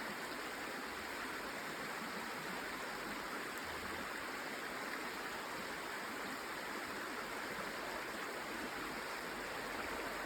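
Running water, a steady, even rush with no breaks.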